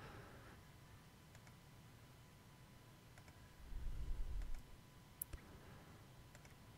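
Faint computer mouse clicks, a few scattered through. A low muffled rumble lasts about a second near the middle.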